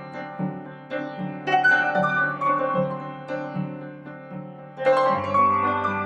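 Background music: gentle plucked and keyboard notes, harp-like, struck in a slow melody with a fuller chord coming in near the end.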